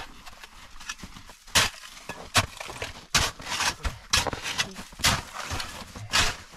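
A small snow shovel digging and scraping packed snow, irregular crunching strokes roughly one or two a second.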